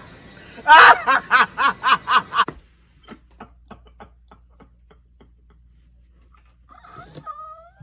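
A man laughing loudly in quick, evenly spaced ha-ha pulses that cut off suddenly about two and a half seconds in. After that comes quieter, breathy laughter, with a brief voiced sound near the end.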